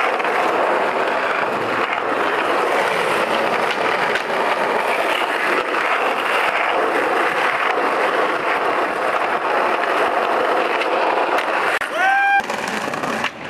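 Skateboard wheels rolling steadily over rough asphalt, a continuous gritty roll. About twelve seconds in the roll drops away and a brief high, rising voice-like call sounds.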